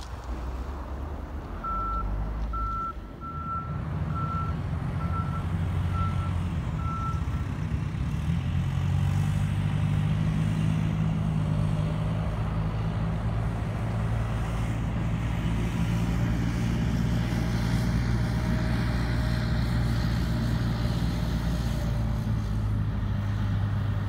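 Case backhoe's diesel engine running while it plows snow. Its backup alarm beeps about seven times, roughly once a second, in the first few seconds as it reverses. The engine grows louder about eight seconds in and keeps running steadily.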